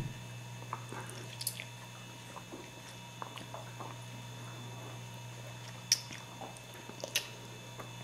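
A toddler chewing and sucking in spaghetti from his fingers: a few short, wet mouth smacks and slurps, the sharpest about six and seven seconds in, over a faint steady low hum.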